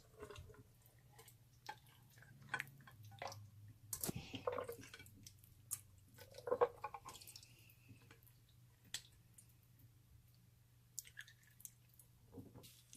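Slime being squished and stirred: faint, irregular sticky clicks and short wet squelches, over a steady low hum.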